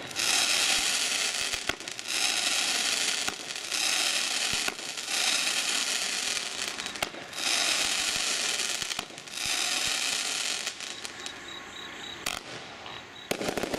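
TNT Hope and Glory consumer firework going off: a run of about six crackling bursts roughly two seconds apart, each a dense cluster of rapid pops lasting a second or so. The crackling thins out for a couple of seconds before another burst near the end.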